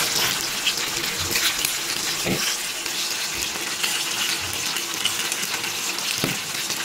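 Pork belly pieces sizzling in a pan with their sweet marinade glaze: a steady hiss with scattered small crackles.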